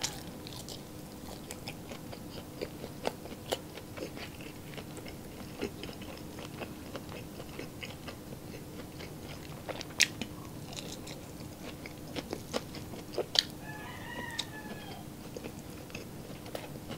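Close-miked chewing of sauce-dipped cured pork and rice: wet mouth smacks and short sharp clicks scattered throughout, over a faint steady hum.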